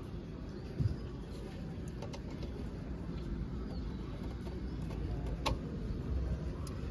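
Faint handling sounds of RCA plugs being pushed into a car amplifier's input jacks: a low thump about a second in and a single sharp click later, over a steady low background hum.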